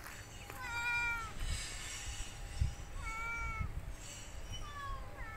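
Domestic cats meowing: three meows, about a second in, about three seconds in and near the end, the last one sliding down in pitch. A dull low thump comes about halfway through.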